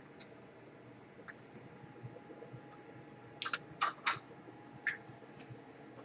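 Short, sharp plastic clicks and taps as the opened laptop chassis is handled on the bench: a few faint ones early, a quick cluster of four past the middle and one more near the end.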